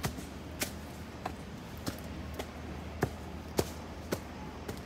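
Footsteps climbing concrete steps, sharp regular steps about two a second.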